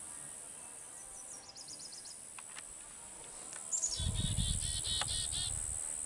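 A chickadee calling: a series of high repeated notes about four seconds in, opening with a falling note, after a short run of high thin notes about a second and a half in. A steady high insect buzz runs underneath, and a low rumble sits under the chickadee's call.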